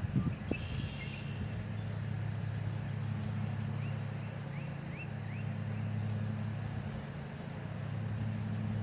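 A vehicle engine running steadily, a low even hum that swells and eases slightly, starting about a second in.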